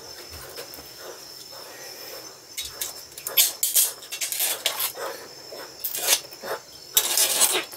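Wet cockle and clam shells clattering and clicking against each other as tongs stir them in a basin of water. The clatter comes in a run of sharp bursts starting a few seconds in.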